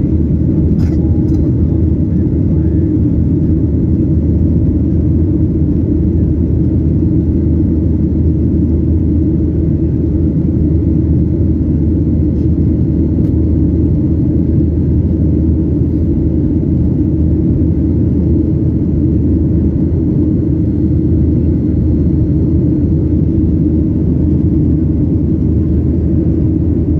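Steady low rumble inside the cabin of a Boeing 737-800 climbing after take-off: its CFM56-7B engines at climb power and the rushing airflow over the fuselage, unchanging in level throughout.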